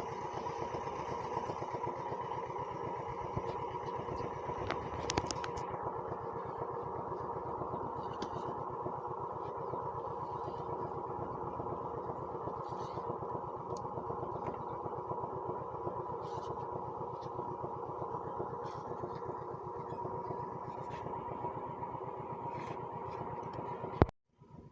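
A small engine running steadily at constant speed, its rapid firing pulses even throughout. It cuts off abruptly with a sharp click near the end.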